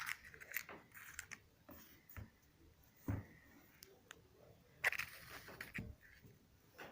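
Faint, irregular clicks and knocks of a ratchet cable cutter being handled and worked, with the two loudest knocks about three and five seconds in.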